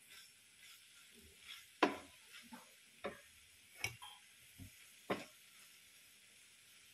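Wooden spatula knocking and scraping against a pan while stirring crumbly soya burji: about five separate light knocks over the first five seconds or so.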